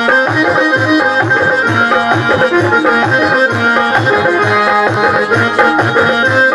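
Live Kumaoni folk music: a dholak hand drum keeps a steady beat, about three strokes a second, under a keyboard melody with an accordion-like tone.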